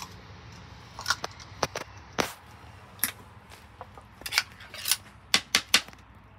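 A metal utensil clinking and scraping against an open tin can of wet cat food as the food is scooped out onto a plate: a string of sharp, irregular clinks, loudest near the end.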